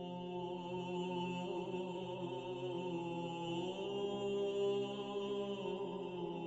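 Background music: slow chant with long held notes, the pitches shifting only slowly.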